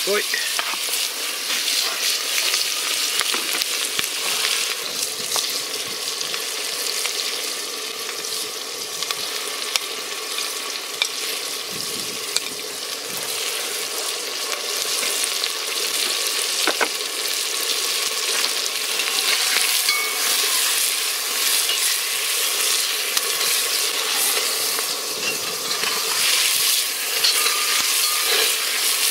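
Chopped onion frying in hot pork fat and butter in a cast-iron potjie pot: a steady sizzle with fine crackling, stirred with a metal spatula.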